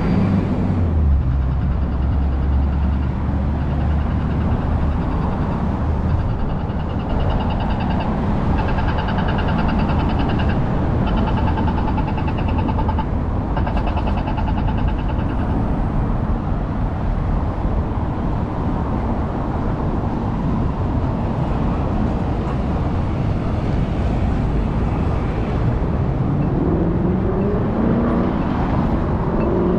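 Steady traffic noise from cars and other vehicles on a busy city street, with a low engine hum at the start. A high, rapid chirping comes and goes for several seconds in the middle, and near the end an engine rises in pitch as a vehicle speeds up.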